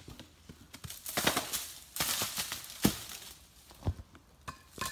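Footsteps crunching through dry fallen leaves and twigs, in uneven bursts with a few sharper snaps.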